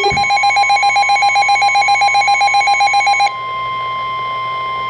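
A weather radio receiver's electronic alert alarm trilling rapidly over the steady NOAA Weather Radio warning alarm tone, a single pitch near 1 kHz that signals a warning is about to be broadcast. About three seconds in the trilling alarm cuts off, leaving the steady tone sounding alone.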